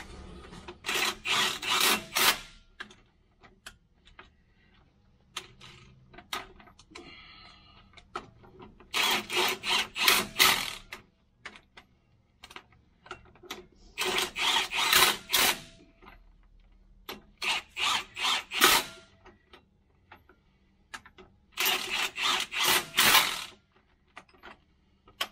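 Cordless tool running in the transmission bell-housing bolts, in five short bursts of rapid clicking a few seconds apart.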